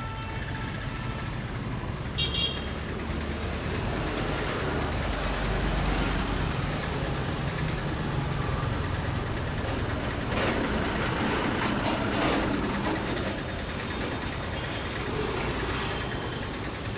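Street traffic: a steady rumble of passing vehicles, with a brief high toot about two seconds in.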